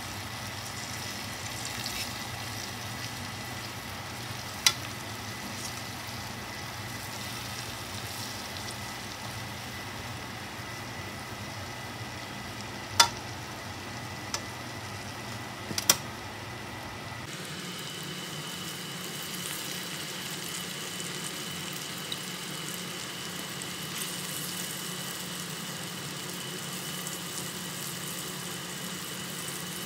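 Battered cauliflower florets sizzling as they shallow-fry in oil in a nonstick wok. A few sharp knocks of the silicone spatula against the pan come around the middle.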